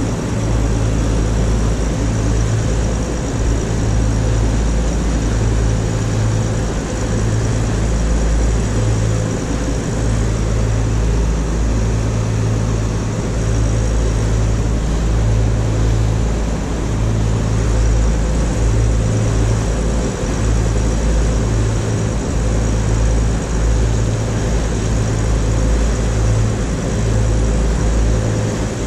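A motor cruiser's engines running steadily under way: a loud low rumble that swells and fades about every second or two, over a steady hiss.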